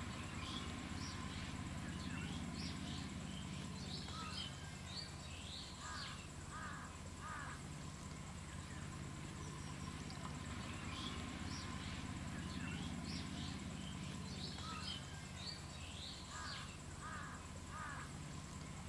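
Faint outdoor ambience of birds chirping in short clusters of quick calls, over a steady low hum and a thin high tone. The same run of calls comes round again about ten seconds later.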